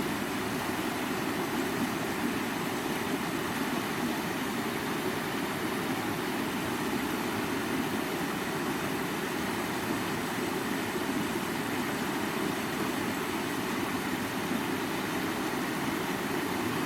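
Flowing river water, a steady, even rush with no change.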